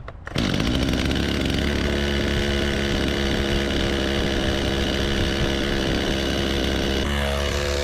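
An engine running at a steady speed, starting abruptly and changing its note slightly near the end.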